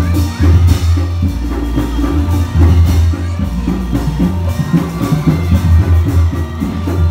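Loud Reog Indramayu accompaniment music: drums and percussion over a deep, booming bass beat.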